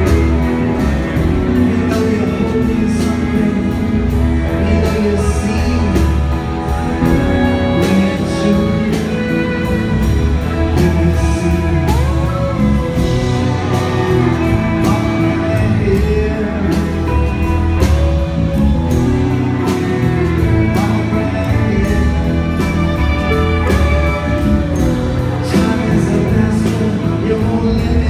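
A live rock band playing in a concert hall: drums keeping a steady beat under bass, guitar and violin, with singing and sliding melodic lines over the top.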